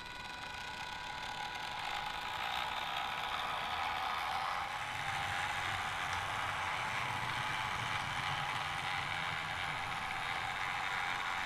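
Small electric motor and gear drive of an H0-scale Faller Car System model bus whirring steadily as it drives, rising in level over the first couple of seconds.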